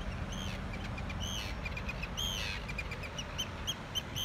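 Arctic tern calling: high, harsh arching cries about once a second, then quick runs of short, clipped notes through the second half.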